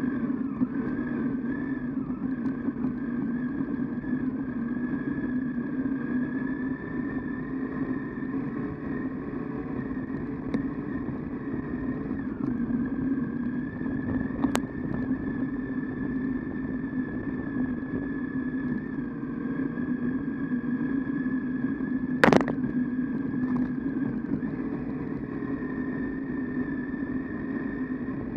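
Triumph Tiger 800XC's three-cylinder engine running steadily as the motorcycle rides a dirt trail. A light click comes about halfway through, and a sharp knock about three-quarters of the way through.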